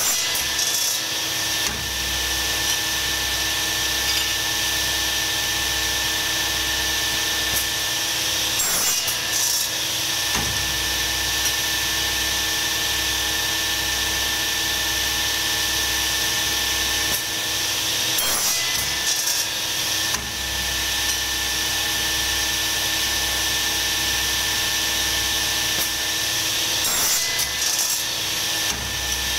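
A machine running steadily with a constant hiss and a steady whine, with short rough disturbances about every nine seconds as the operator works material through it.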